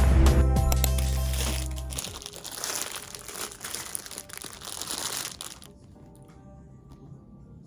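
Background music fading out about two seconds in, followed by about three seconds of crinkling handling noise, then near quiet.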